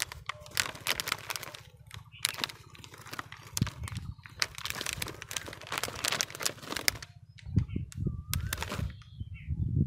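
Plastic snack packet crinkling as it is turned and squeezed in the hand, in an irregular run of rustles, with low rumbles near the end.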